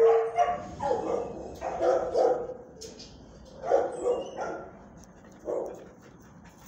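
A dog barking repeatedly in drawn-out, pitched barks. The barks come in a string of bursts that space out and grow quieter toward the end.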